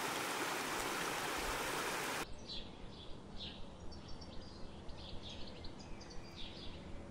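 Steady rush of a snowmelt stream running over gravel, which cuts off abruptly about two seconds in. Then small birds chirping repeatedly with short, quick falling notes over a quiet background.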